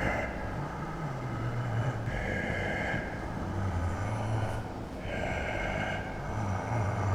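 Slow, heavy, creepy breathing, about three breaths. Each breath alternates a low, rough, pitched sound with an airy hiss.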